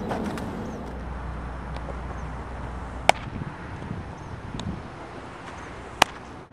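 A baseball bat hitting a ball twice, two sharp cracks about three seconds apart over a steady outdoor background.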